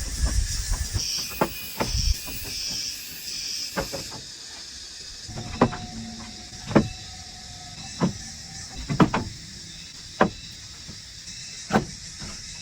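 A series of sharp knocks, spaced unevenly about once a second, mostly in the second half, over a steady high hiss.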